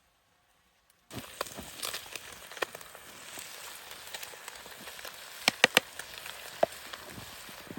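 Food frying in a pan, a steady sizzle with crackling that starts suddenly about a second in. A quick cluster of sharp clicks comes a little past the middle.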